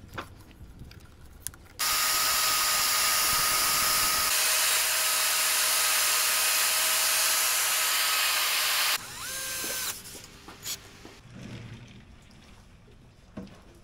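Electric wood router running while it cuts along a wooden board, a loud steady whine that starts about two seconds in and stops about nine seconds in. Quieter knocks of wood being handled follow.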